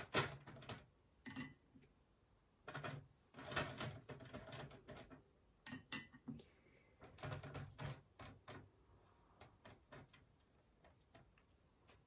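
Large watercolour brush being worked in a paint palette to mix a grey-blue wash: quiet clusters of taps, clicks and scrapes with short pauses between.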